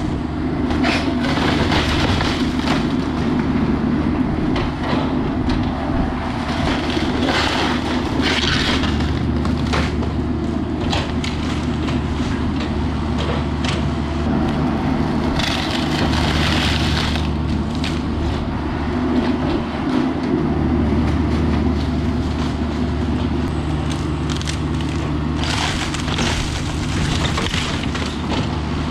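A heavy demolition machine's engine running steadily under load while wooden walls and framing of a house are crushed and cracked, with several louder stretches of splintering and crunching about a second in, around seven to eight seconds, mid-way and near the end.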